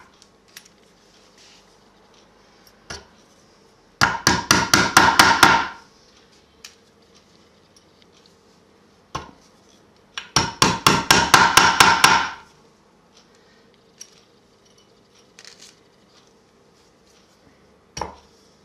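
Upholstery tacks being hammered into a wooden stool frame to fix cloth: two runs of quick, light taps, about five a second and each about two seconds long, with a few single taps between.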